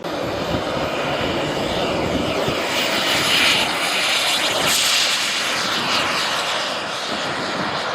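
Turbine engine of a radio-controlled model jet in flight: a steady rushing whine that swells to its loudest around the middle, as on a pass.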